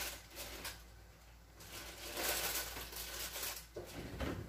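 Rustling and crinkling in several short bouts, the longest about two seconds in, followed by a few light clicks and a knock at the end.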